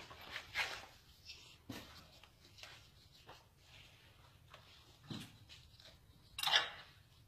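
Scattered handling noises of an M4 rifle and a shoelace being worked into its bolt carrier group: short rustles and light clicks, with a louder brief scrape near the end.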